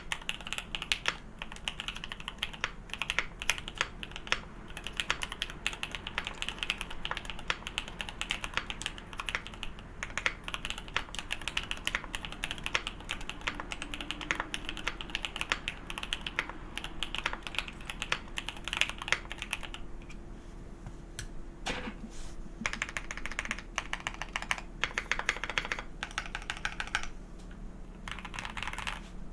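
Steady, fast typing on a custom 65% mechanical keyboard, a Mikeneko65 with OP Black SE switches, PBT keycaps and a polycarbonate plate. Keystrokes clatter in a dense stream that thins briefly about two-thirds of the way through and again near the end.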